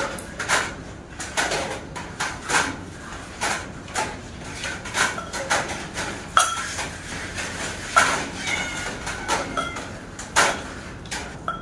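Kitchen clatter: irregular knocks and clinks of a knife and utensils against a clay mortar with a wooden pestle, about one or two a second, as tomatoes are sliced into it.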